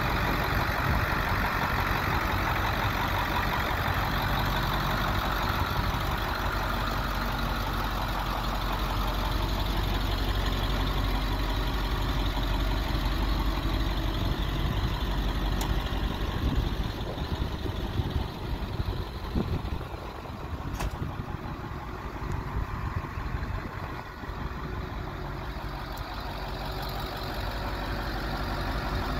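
International T444E V8 turbo diesel idling steadily in a 1996 International 4700 truck. It grows quieter for several seconds past the middle, then louder again near the end.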